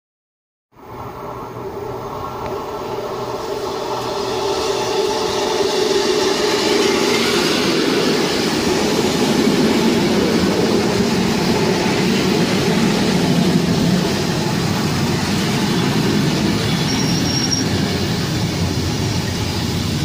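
Belgian NMBS electric multiple unit passing close along the platform track: steady rumble of its wheels on the rails, growing louder over the first several seconds as the train draws level, then holding.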